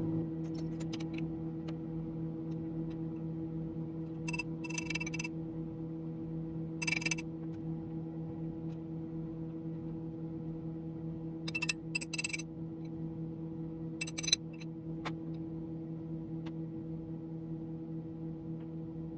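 Metal tool holder and quick-change tool post on a lathe being handled and adjusted, giving several short clusters of sharp metallic clicks and clinks, over a steady low electrical hum.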